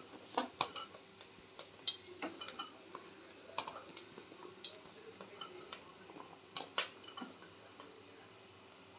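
Chopped sponge gourd (nenua) pieces being pushed by hand off a steel plate into a pressure cooker. There are scattered light clicks and taps as pieces and fingers strike the metal, irregularly spaced with short gaps between them.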